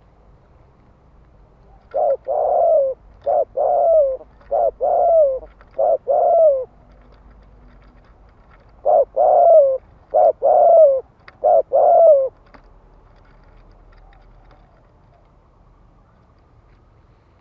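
Spotted dove cooing in two bouts, the first of four and the second of three coos, each a short note followed by a longer falling one. This is the fast, insistent 'thúc gù' cooing that keepers use from a decoy bird to call in wild doves.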